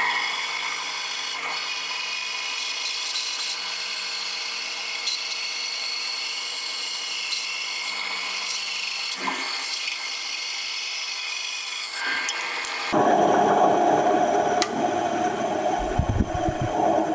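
Benchtop bandsaw running and cutting through a block of tupelo wood, splitting it lengthwise into two halves. About thirteen seconds in, the sound changes abruptly to a coarser, lower noise.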